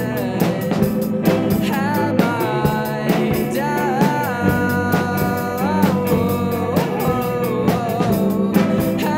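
Indie rock song with drums keeping a steady beat under bass and guitar, and a lead melody line that bends and slides in pitch.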